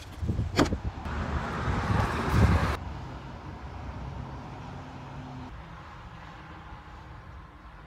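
The motorhome's entrance door latch clicks as its plastic pull handle is worked and the door is opened. A loud rushing noise of handling or wind follows and cuts off suddenly, leaving a faint steady hum.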